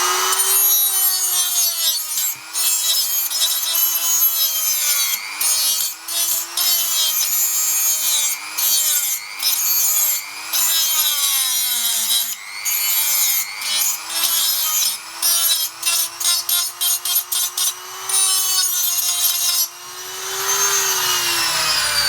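Handheld high-speed rotary tool grinding away the last part of an airsoft gearbox shell. The motor's pitch sags each time the bit bites into the metal and recovers as it lifts off, giving repeated short grinding passes with breaks between them. The motor spins down near the end.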